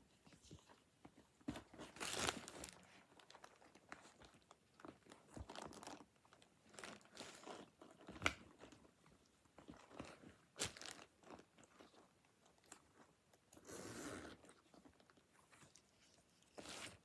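Faint rustling and rubbing of a Coccinelle pebbled-leather handbag being handled and folded, in short irregular bursts with a few sharper clicks.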